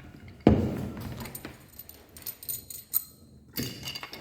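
Small metal hardware and tools being handled: a sharp knock about half a second in, then scattered light clinks and taps, and another knock near the end.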